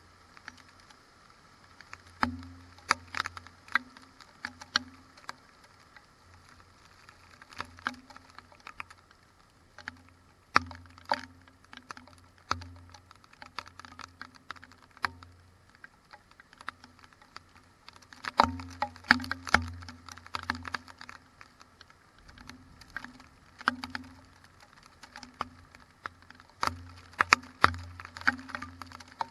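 Raindrops hitting the GoPro camera during a thunderstorm: irregular sharp taps with a dull thud in each, coming in clusters with quieter spells between.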